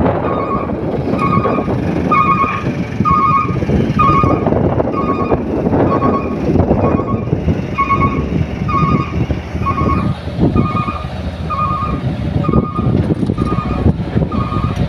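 A reversing alarm beeping steadily, about two beeps a second, over the rumble of running dump truck and excavator engines.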